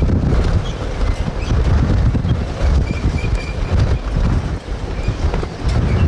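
Extreme wind gusting hard over the microphone: a loud, low rumbling rush that surges and eases with each gust.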